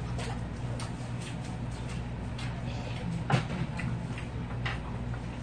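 Eating sounds at close range: chewing and small irregular clicks of chopsticks and spoons against dishes, with one louder click about three seconds in, over a steady low hum.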